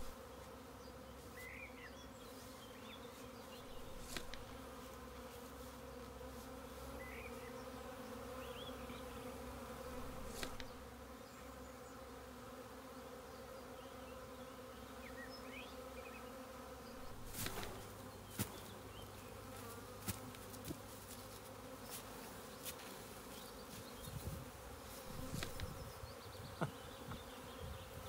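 A swarm of honeybees clustered on the ground, many wings together making a steady low hum. A few short clicks come in the second half.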